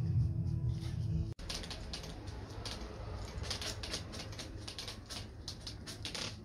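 Background music for about the first second, then, after an abrupt cut, a rapid, irregular run of light clicks and ticks.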